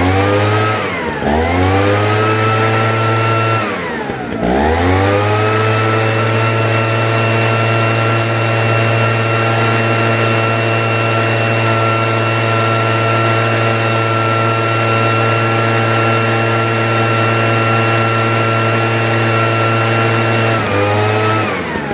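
Small petrol engine of a farm machine running at high revs. The throttle is let off and reopened three times in the first few seconds, then held steady, with the revs dropping again near the end. The engine is being test-run after repair for a fault where it started and then died.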